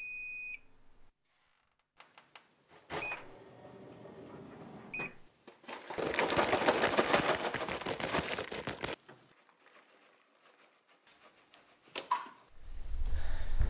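Microwave oven: a long beep cuts off, two short key beeps, then the oven running with popcorn popping in a dense crackle for about three seconds. A wall light switch clicks near the end, followed by a low hum.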